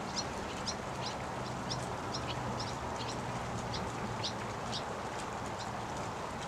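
Seabirds calling over and over, short high falling notes about two a second, over a steady hiss of rain on the water.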